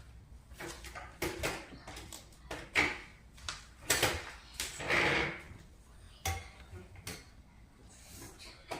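Objects being handled: scattered clicks and knocks with rustling, and a longer scraping or rustling sound about five seconds in.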